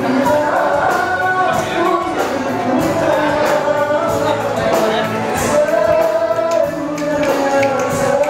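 Music with a singing voice, playing steadily.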